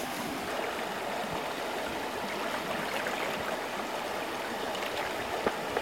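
Shallow river running over stones, a steady rush of water, with one brief sharp click near the end.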